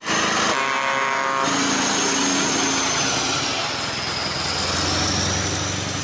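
Scania semi-truck pulling a curtainsider trailer driving past, its diesel engine running steadily, with a thin high whine over it.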